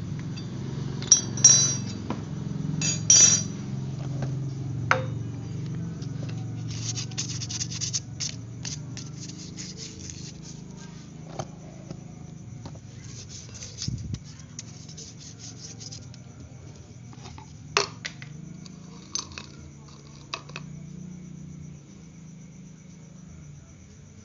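Metal-on-metal clinks, taps and scrapes from a wrench and brake parts as a scooter's front disc brake caliper is unbolted and taken apart. The sharpest clinks come about a second and three seconds in, a run of rattling clicks follows a few seconds later, and one more sharp clink comes near the end, over a low steady hum.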